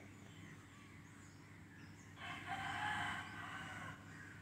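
A single drawn-out animal call, starting about two seconds in and lasting nearly two seconds, over a steady low hum.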